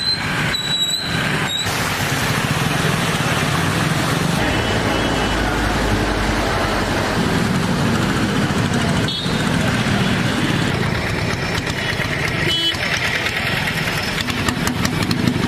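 Street traffic: motor vehicle engines running under a steady wash of noise.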